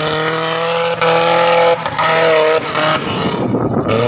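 Engine of a 1000cc-class tubular offroad buggy revving hard on a dirt hill climb, held at high revs with brief dips about one and two seconds in, then a gap of noisy rumble near the end before it revs up again.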